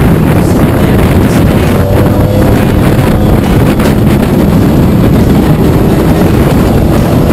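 Off-road race vehicle's engine running at speed on a ride, with heavy wind buffeting the microphone; a loud, steady, low rumble throughout.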